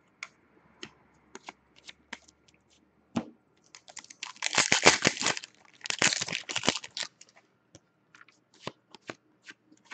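Trading cards being handled with light scattered clicks, then two crinkly bursts about a second long each, starting about four seconds in: a foil card-pack wrapper being crumpled and torn open.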